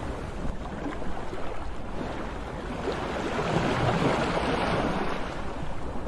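Sea waves washing in, a steady rush of surf that swells to a louder surge about halfway through and eases off again.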